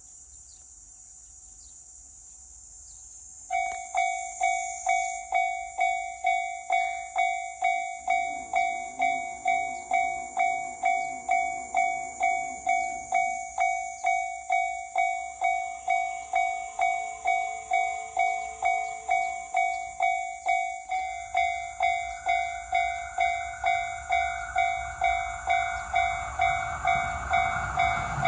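Japanese railway level-crossing warning bell starts about three and a half seconds in and dings steadily, a little under twice a second. Near the end an approaching train's noise grows under it.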